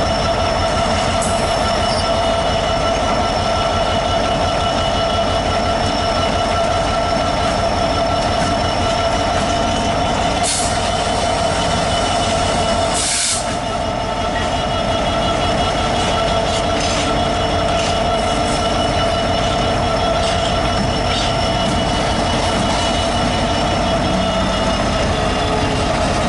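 Class 66 diesel locomotive's two-stroke V12 working under power at speed alongside, a steady engine drone with a whine running through it. Heard from a car keeping pace, with two short bursts of hiss about ten and thirteen seconds in.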